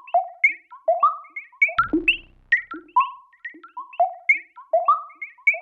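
Music of short, quickly fading plucked notes at several pitches, in a melodic pattern that repeats about every two seconds.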